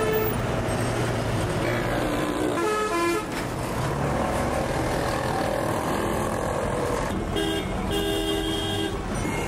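Busy street traffic with a steady engine rumble and vehicle horns honking: a short toot about three seconds in and a longer, two-part honk from about seven seconds in.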